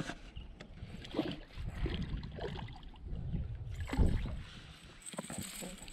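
A hooked trout splashing and thrashing at the water's surface as it is reeled in, in uneven bursts, with the loudest splash about four seconds in.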